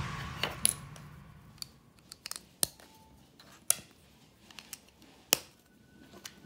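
LEGO bricks clicking as pieces are handled and pressed together: a dozen or so sharp, irregularly spaced clicks, the loudest about five seconds in.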